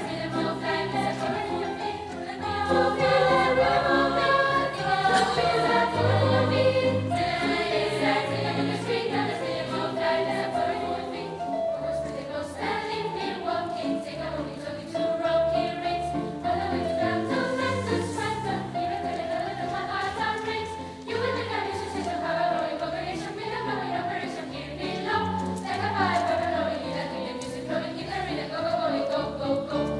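Children's choir singing a sustained, flowing piece together.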